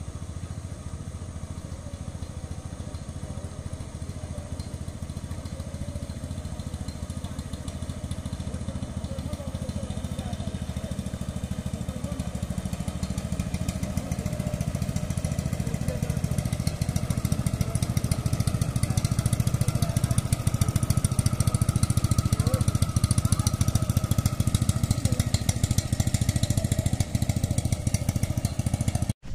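A small canal boat's motor running steadily, growing louder as the boat approaches and passes close by.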